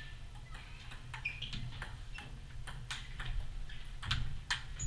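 Table tennis ball clicking back and forth off the paddles and the table in a fast rally, sharp ticks about two or three a second, over a low steady hum.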